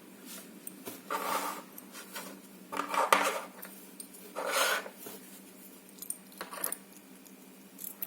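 Small metal padlock parts and tools clinking and rattling against a hard surface in three short bursts, with a few light clicks between, as an ABUS 72/40 padlock is taken apart.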